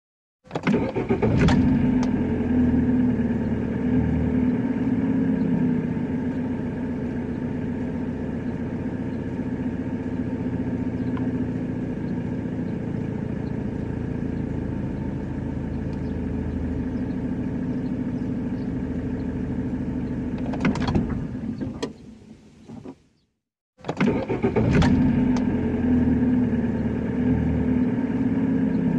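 A car's combustion engine starting and settling into a steady idle. Near the end the sound fades and cuts out for about two seconds, then the engine starts again and idles.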